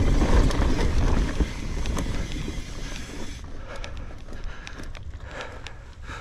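Mountain bike rolling down a dirt trail: wind rushing over the camera microphone and tyres running on the dirt, with scattered clicks and rattles from the bike. It grows steadily quieter over the second half.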